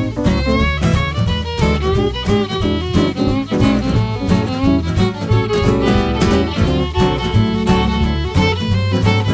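Instrumental music: a fiddle plays a fast melody over guitar and a heavy, pulsing bass line.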